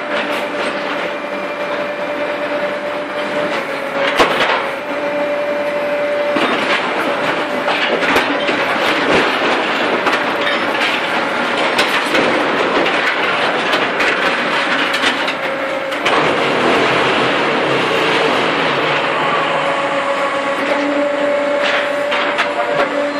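Concrete paving-stone machinery running: a loud, continuous mechanical clatter and rattle over a steady motor hum.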